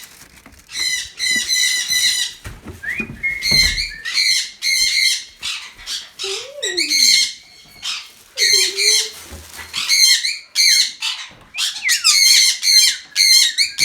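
Pet parakeets chattering and squawking, rapid harsh chirps in quick bursts with short pauses between.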